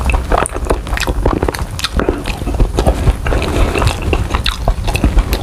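Close-miked chewing and mouth smacks of a person eating grilled balut, a dense run of small irregular clicks, with a metal spoon scraping inside the eggshell.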